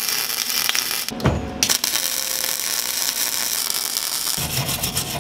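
Electric arc welding: the arc crackling in two short tack welds spatter-welding thin steel onto a lawn mower blade. The first weld stops about a second in, a dull knock follows, and the second weld starts half a second later and runs on.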